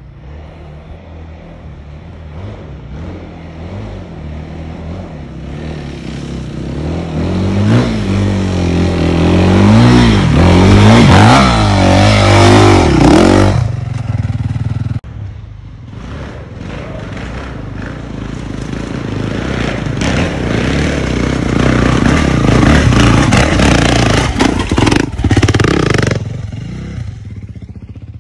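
Dirt bike engine revving hard and easing off again and again as it is ridden off-road. The sound breaks off suddenly about halfway and picks up again with more riding.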